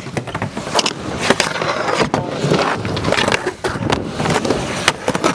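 Skateboard wheels rolling over concrete ramps, with several sharp clacks of the board hitting the surface.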